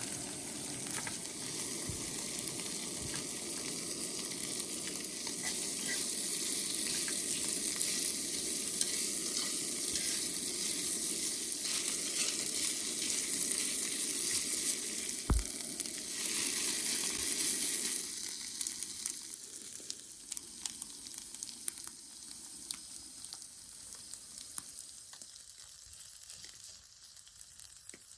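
Food sizzling and crackling in a hot pan, dying down about two thirds of the way through, with a single knock near the middle.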